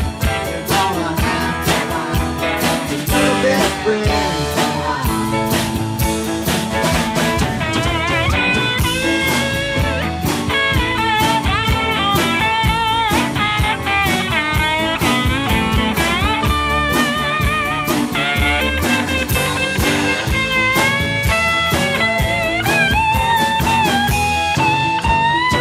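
Live country band in an instrumental break. A pedal steel guitar plays the lead in sliding, wavering notes over strummed guitar and drums keeping a steady beat.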